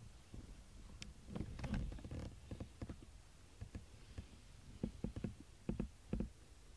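A cat making irregular soft clicks and crackles, a few a second, which the owner calls a nice sound.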